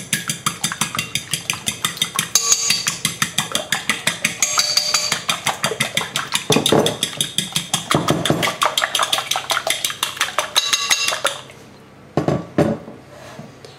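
A fork beating eggs in a glass bowl, its tines clinking rapidly and evenly against the glass several times a second, stopping about eleven seconds in.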